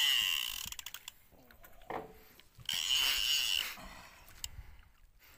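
Fishing reel whirring in bursts of about a second, a steady high whine over hiss, with a hooked fish loading the bent rod.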